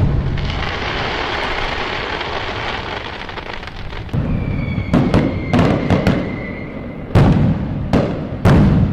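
Fireworks going off: a long crackling hiss trailing away after a bang, then a string of sharp bangs from about four seconds in, with a faint high whistle partway through.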